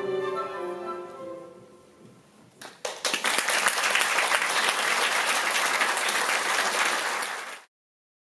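Classical music dies away over the first two seconds. A few scattered claps follow, and then an audience breaks into applause, which cuts off abruptly near the end.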